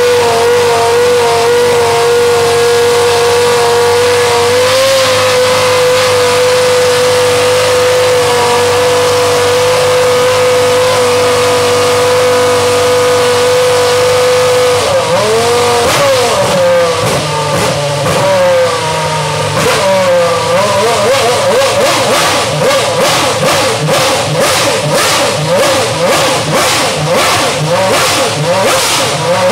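Renault R26 Formula 1 car's 2.4-litre V8 engine running in the pits. It holds one steady note for about fifteen seconds, then is revved up and down in swoops, and near the end in quick repeated blips, about two a second.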